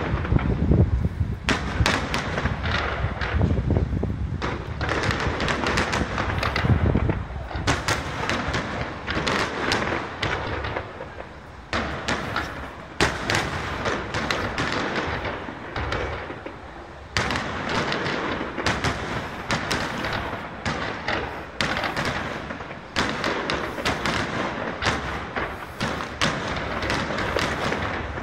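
Aerial fireworks shells bursting in rapid succession: a near-continuous string of sharp bangs and reports. The first seven seconds or so carry deep, heavy booms; after that the bursts are mostly sharper and higher, with short lulls between volleys.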